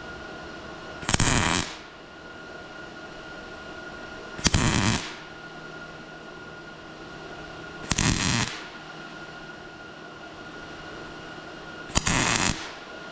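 MIG welder striking four short spot welds, each a half-second burst of arc noise, about three and a half seconds apart, over a steady hum.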